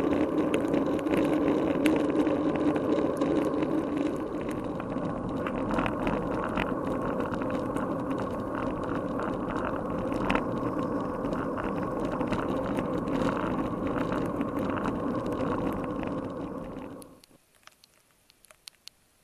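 Road bike riding on a wet road, heard through an action camera's sealed waterproof housing: a steady muffled rumble of wind and tyres with scattered clicks and taps. Near the end it drops abruptly to near silence with a few faint clicks.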